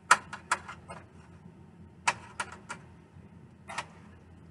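Sharp clicks and taps of a utensil against a baking pan as sauced chicken thighs are flipped over, in three quick clusters about one and a half to two seconds apart.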